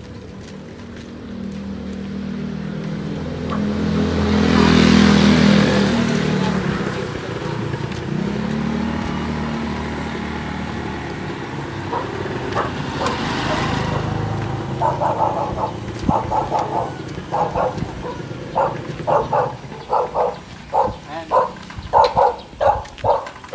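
A motorcycle engine running past, growing to its loudest about five seconds in and then fading. From about halfway, a dog barks repeatedly, about two barks a second.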